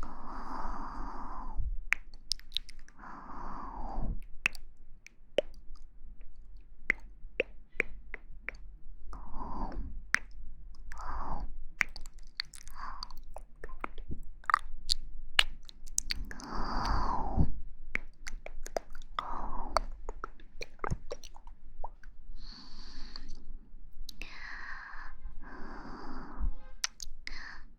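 Close-miked ASMR mouth sounds: many sharp wet clicks and smacks, with a soft breathy exhale every few seconds.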